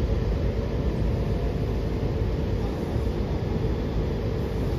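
Washington Metrorail train running between stations, heard from inside the passenger car: a steady low rumble.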